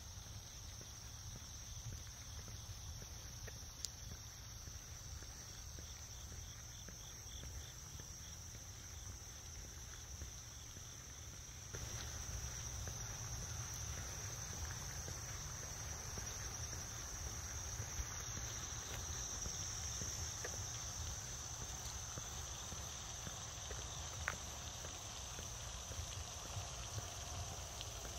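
A steady high-pitched trilling chorus of insects, with a faint low rumble underneath and a few light clicks; the whole gets a little louder about twelve seconds in.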